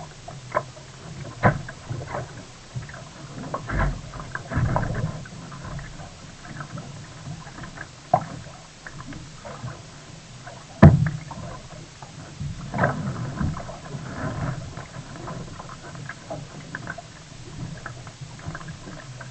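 Sea kayak being paddled: uneven paddle splashes and water noise, with a few sharp knocks, the loudest about eleven seconds in.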